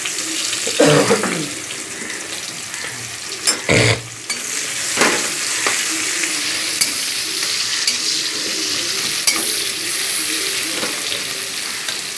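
Chopped onions sizzling in hot oil in a kadhai, stirred with a spatula that scrapes and knocks against the pan a few times.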